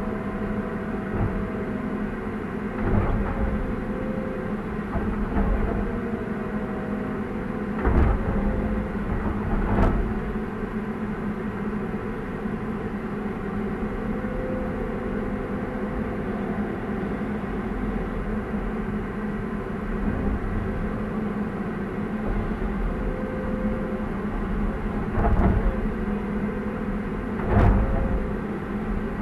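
Hydraulic excavator's diesel engine running steadily under digging load, heard from inside the cab, with short wavering whines from the hydraulics as the boom and bucket move. A few sharp knocks stand out, the loudest about 8 and 28 seconds in.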